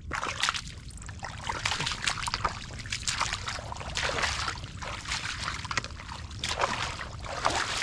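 Bare feet wading through ankle-deep muddy water, splashing and sloshing with each step in an irregular run of splashes.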